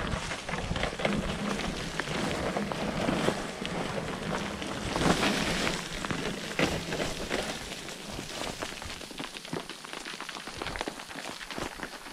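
Specialized Levo electric mountain bike rolling down loose rock and gravel: tyres crunching over stones, with many sharp clicks and knocks as the bike rattles over them. The crunching eases off after about eight seconds.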